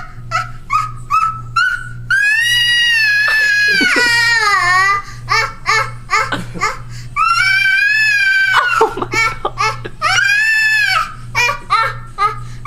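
Baby 'singing': long, high-pitched drawn-out wails that bend up and down in pitch, three of them, separated by short babbling yelps.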